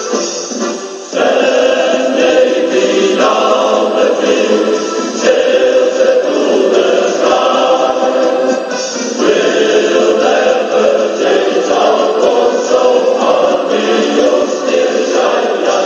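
Shanty choir singing a song with full voices, coming in loudly about a second in after a quieter instrumental start.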